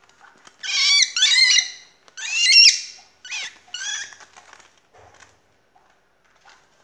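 Cockatiel screaming while a gloved hand grabs it: two long harsh screeches about one and two and a half seconds in, then a few shorter calls that trail off. These are the defensive distress calls of an untamed bird that is trying to bite.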